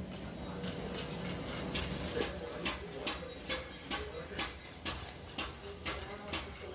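A steady run of sharp clicks or taps, a little over two a second, starting about two seconds in.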